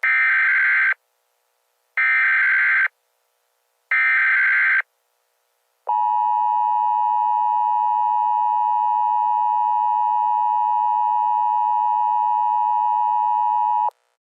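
Emergency Alert System tones. Three short buzzing SAME data-header bursts, about two seconds apart, are followed by a steady attention tone held for about eight seconds, which then cuts off.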